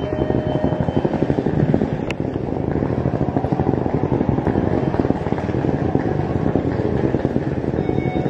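Dense, rumbling, fluttering noise buffeting the microphone of a handheld phone being carried while walking, with a single sharp click about two seconds in.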